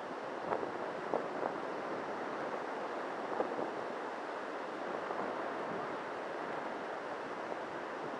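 Surf breaking on a sandy beach: a steady wash of waves, with some wind on the microphone.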